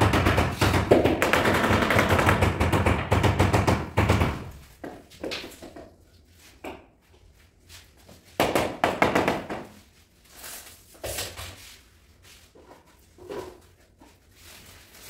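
Mallet tapping large porcelain floor tiles to bed them into the mortar: a rapid run of knocks for about the first four seconds, then scattered single taps.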